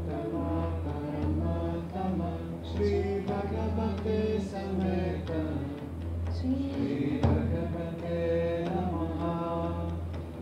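Monochord played as a steady low drone, its overtones shifting above it, with a voice chanting a mantra-like line over it. There is a brief accent about seven seconds in.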